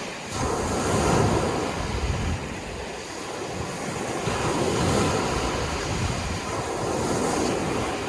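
Sea waves breaking and washing ashore, the surf swelling louder about a second in, again around five seconds and near seven seconds, with some wind on the microphone.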